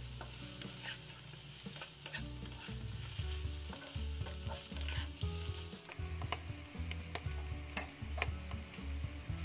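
Wooden spatula stirring and scraping diced ham, onion, garlic and mushrooms in a nonstick wok, with repeated short scrapes over a steady frying sizzle.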